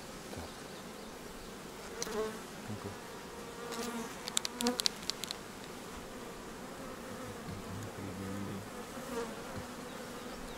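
Honey bees buzzing steadily around the hive. A quick cluster of light clicks about four to five seconds in.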